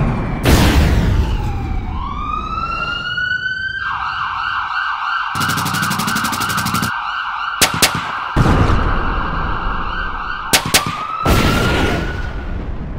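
Battle sound effects: a loud blast about half a second in, then a siren winds up and holds a warbling wail. A rapid rattle comes in the middle, two pairs of sharp shots follow, and another blast hits as the siren winds up again near the end.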